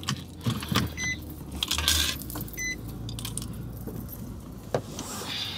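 Small clicks, knocks and rustling of someone moving about and handling things inside a parked car's cabin, with a light jingle of metal. Two short high electronic beeps sound about a second and a half apart.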